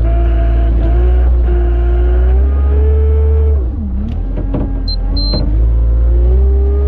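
Tractor engine running under load with a heavy low rumble; its pitch climbs slowly, dips sharply about four seconds in, then picks up again. Two short high beeps sound about a second later.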